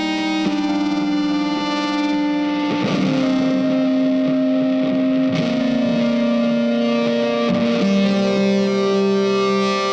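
Background music: held electric guitar notes with distortion and effects, the chord changing every second or two.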